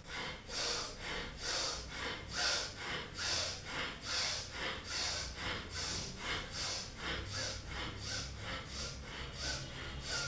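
A woman doing bhastrika pranayama (bellows breath): forceful, even breaths drawn in and pushed out through the nose in a steady rhythm, about two strokes a second.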